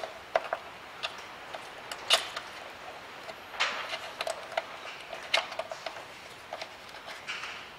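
Irregular light clicks and taps as hands handle towbar wiring and plastic parts against the car's underbody, with a few sharper knocks about two seconds in and again near the middle.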